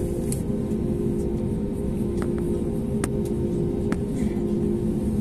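Steady low cabin hum inside an Airbus A320neo standing still during de-icing, with a constant drone tone over it. A few light clicks come about two, three and four seconds in.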